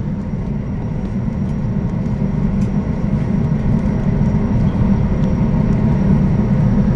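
Jetfoil's gas turbines and waterjet propulsion running as a steady low rumble with a faint high whine, heard from inside the passenger cabin while the craft slows to come down off its foils. The noise swells slightly toward the end.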